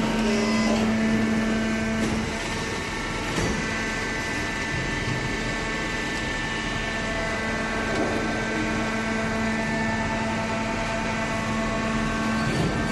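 Vertical hydraulic baler's electric motor and hydraulic pump running with a steady hum, the tone shifting slightly about two seconds in, with a few faint knocks.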